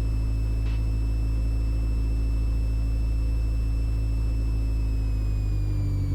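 Mooney M20E's four-cylinder Lycoming engine and propeller running at low power while taxiing, a steady drone heard from inside the cabin. Its pitch drops slightly about five and a half seconds in.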